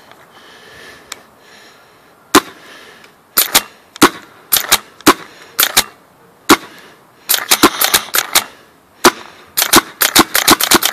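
Autococker paintball marker with a pneumatic assist pump kit firing paint: sharp pops, at first single or paired shots about a second apart. In the last few seconds they come in quick strings of rapid shots.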